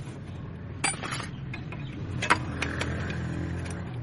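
Motorcycle engine running with a steady low hum, a few sharp metallic clicks over it, and its note swelling slightly in the second half.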